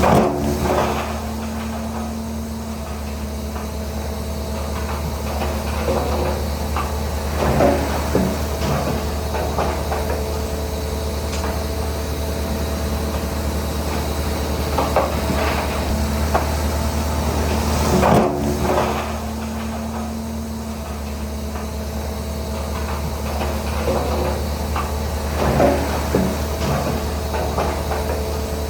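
Shantui DH17C3 crawler bulldozer's diesel engine running steadily. Clusters of metallic clanks and knocks from its tracks and blade come every few seconds.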